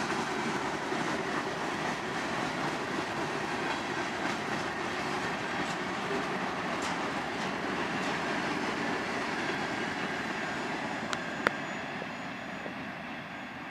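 Freight train of covered hopper cars rolling past: a steady rumble of steel wheels on the rails with scattered clicks. Near the end there is one sharp click, and the rumble eases off slightly.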